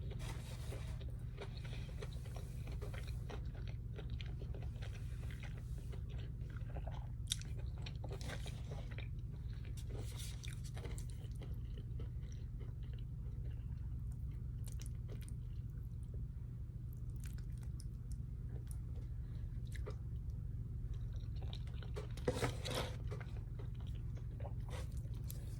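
Close-miked eating: chewing and biting with crackly, crunchy mouth noises, a louder cluster of bites about 22 seconds in, over a steady low hum.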